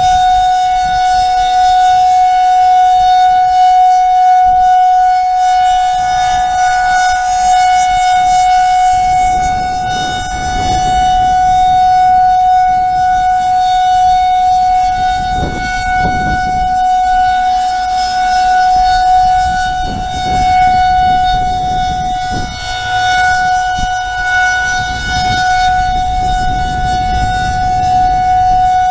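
Outdoor tornado warning siren sounding its monthly test as one steady tone that holds its pitch and swells and fades slightly. A low rushing noise sits underneath from about a third of the way in.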